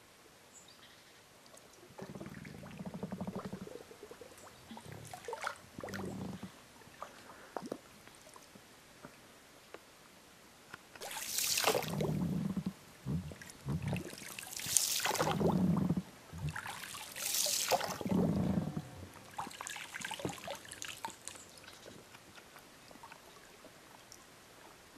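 Water splashing and trickling in repeated bursts. The loudest three come about three seconds apart in the middle, with fainter ones before and after.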